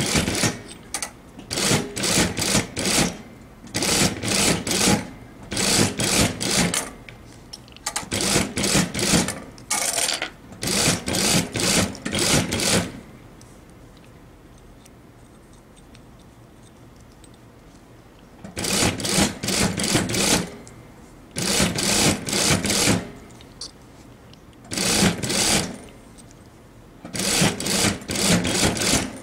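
Industrial single-needle sewing machine stitching in short runs of about a second, stopping and starting again and again, with a pause of about five seconds near the middle.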